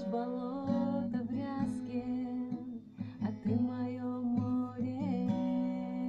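A woman singing while strumming an acoustic guitar, with a short break in the voice about three seconds in.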